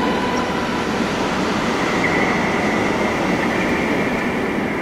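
A small 3.5-inch FPV quadcopter's motors running in flight, heard as a steady rushing noise with a faint whine; a higher whine comes in about two seconds in.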